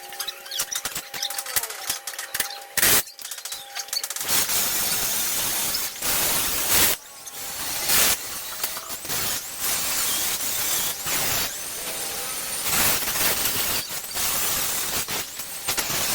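Welding on a Vespa steel body panel: a dense crackling hiss, sparser at first and then continuous, with brief breaks about seven and eight seconds in.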